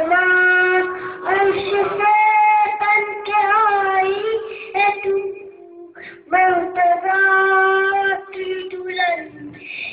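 A young boy singing a manqabat, a devotional Urdu poem, into a hand-held microphone with no instruments: long held notes and sliding melodic turns in two phrases, with a short breath pause about halfway through.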